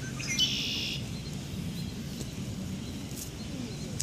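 A bird calls once, briefly and high-pitched, about half a second in, with a few fainter chirps later, over a steady low outdoor rumble.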